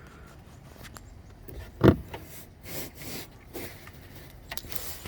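Plastic rubbing, scraping and clicking as a bulb socket is worked into a tight hole in a headlight housing, with one sharp knock about two seconds in.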